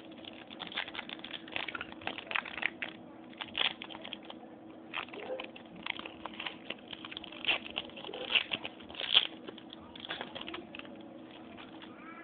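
Trading-card pack wrapper crinkling in quick, irregular crackles as it is torn open and the cards pulled out by hand, over a steady faint low hum.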